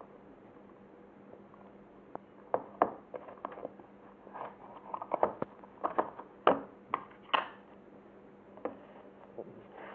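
Glossy slime being squeezed and poked by hand, making irregular sticky clicks and small pops. They come thickest in the middle seconds, over a faint steady hum.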